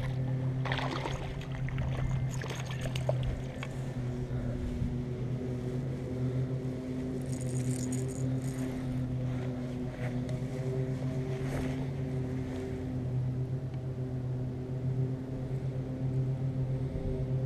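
Steady low motor hum holding one pitch, with scattered clicks and rustles in the first few seconds and a brief high hiss about halfway through.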